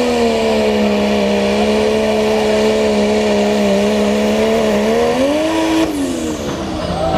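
Diesel pickup truck's engine running hard under full load while pulling a sled, its pitch held nearly steady. It climbs briefly about five seconds in, then falls away about a second later as the throttle is lifted and the pull ends. A faint high whine drops off at the same moment.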